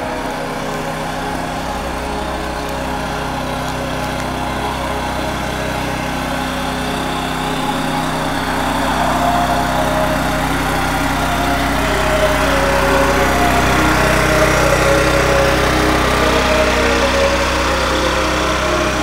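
Small gasoline engine of a cart-mounted pressure washer running steadily at a constant speed, growing louder from about eight seconds in.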